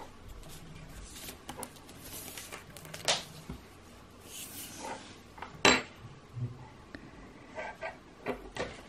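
Light handling sounds of a tailor's tape measure and yarn being moved on a wooden tabletop: faint rustling with scattered small clicks and taps, two of them sharper, the loudest a little past halfway.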